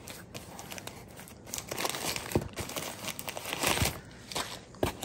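Crumpled newspaper packing crinkling and rustling as it is pulled by hand out of a cardboard box, with a few sharper crackles.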